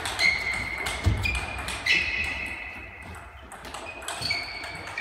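Table tennis rally sounds from several tables: celluloid-type balls clicking rapidly off bats and tabletops. Short high squeaks of sports shoes on the hall floor come and go, and there is a dull thump about a second in.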